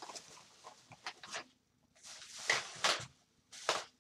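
Rustling handling noise: a few short, irregular rustles as objects are picked up and moved about by hand.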